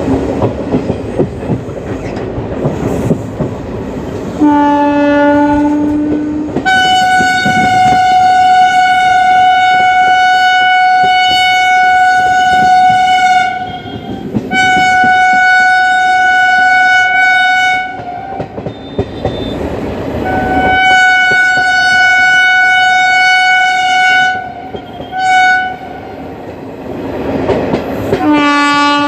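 WAP4 electric locomotive's two-tone horn sounding over the clatter of ICF coach wheels on the rail joints. A short blast on the low note comes first, then three long blasts on the high note and two short toots, and the low note returns near the end.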